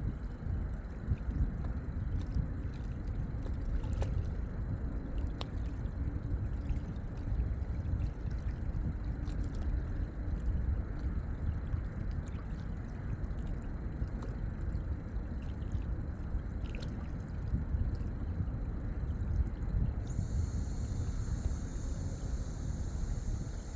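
Lakeside water lapping and trickling over a low rumble. Near the end a faint, steady high-pitched whine comes in.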